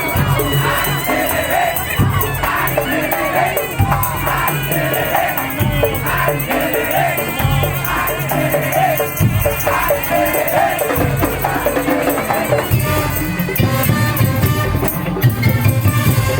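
Loud music with a steady, repeating low beat and shaker-like rattling percussion, over crowd noise. The beat grows denser and heavier near the end.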